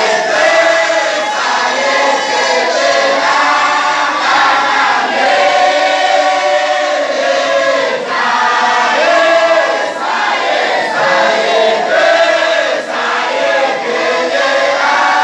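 A large group of men chanting Sufi dhikr together in a wadifa, many voices singing the same phrases loudly and without a break.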